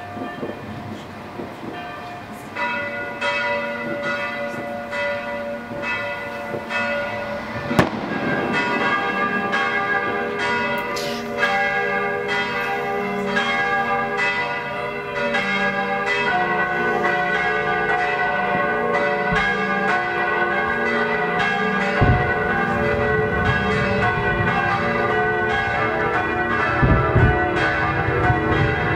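Several church bells ringing together in a full peal, growing louder as more bells join in. A few firework bangs cut through, one about eight seconds in and another about twenty-two seconds in, with low thumps near the end.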